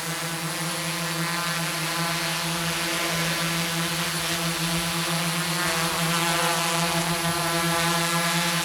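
Quadcopter with four DYS D4215 650kv brushless motors spinning 10-inch APC propellers, hovering with a steady propeller hum that grows gradually louder as it comes closer.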